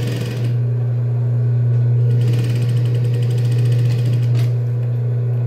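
Industrial straight-stitch sewing machine sewing in two runs of fast, even stitching: a short one at the start and a longer one from about two seconds in to about four and a half seconds in. Both run over the steady hum of its motor.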